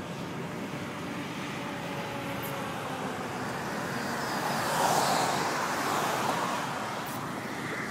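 A passenger car driving past, its tyre and engine noise swelling to a peak about halfway through and then fading, over a steady background of road noise.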